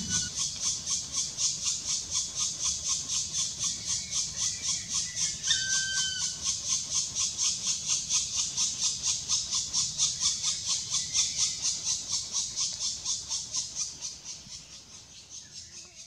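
Black woodpecker nestlings begging from inside the nest cavity as they are fed: a fast, even chorus of high calls, about four a second, fading away over the last two seconds.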